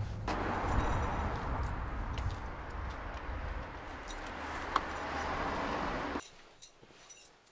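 Keys jangling and a front-door lock being worked, with small metallic clicks over a steady outdoor background noise. The noise cuts off abruptly about six seconds in, leaving only a few faint clicks.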